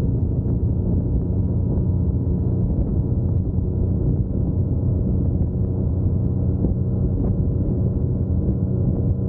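A 2021 Yamaha MT-09's three-cylinder engine running steadily at a road cruise, its pitch holding even with no revving.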